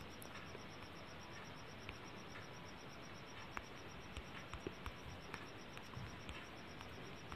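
Faint background hiss with a steady, evenly pulsing high insect trill, and soft irregular clicks of typing on a phone's on-screen keyboard, most of them in the middle of the stretch.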